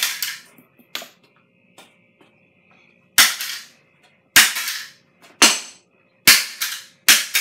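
Hammer blows smashing a toy car: after a light knock about a second in, five hard, sharp bangs come about a second apart from about three seconds in, each dying away with a short echo.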